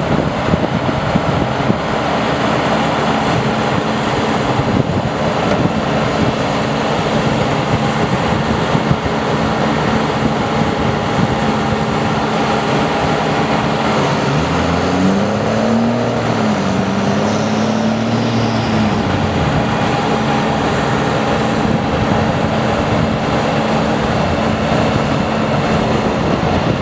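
Bobcat T590 skid steer's diesel engine running steadily under load. About halfway through, the pitch rises, wavers for a few seconds, then drops back.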